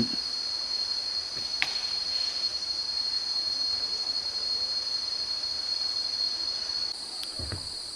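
Insects droning steadily at one high, unbroken pitch, with a higher layer growing stronger about seven seconds in.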